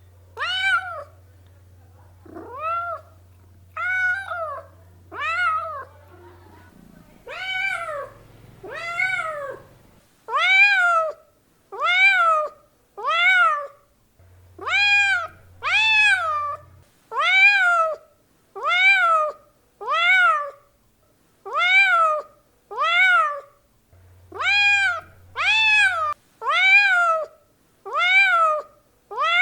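A domestic cat meowing over and over, each meow rising then falling in pitch. The first few are quieter and further apart; from about a third of the way in, they come louder, about once a second.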